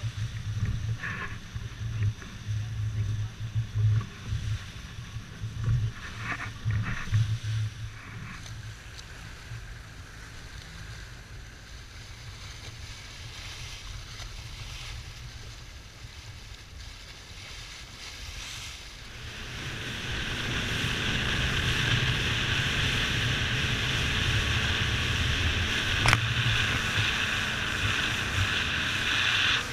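Center-console boat with an outboard motor running at speed across open water: rushing water and wind on the microphone, gusting in low thumps at first, then, about two-thirds of the way through, rising to a loud steady rush. One sharp click near the end.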